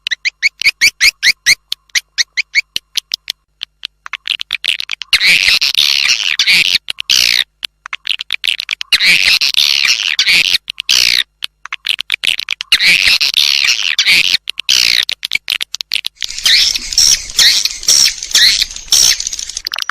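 Played-back swiftlet lure call: edible-nest swiftlet chirps and twitters meant to draw swiftlets into a swiftlet house. It opens with a fast string of sharp repeated chirps, about six a second. From about four seconds in it turns to dense twittering chatter in four phrases of two to three seconds each, with short gaps between them.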